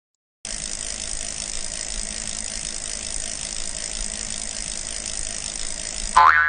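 A steady, rapid mechanical ratcheting sound effect runs for nearly six seconds. It cuts off near the end as a louder springy boing with a rising pitch begins.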